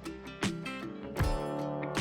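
Background music with acoustic guitar strumming and a steady beat.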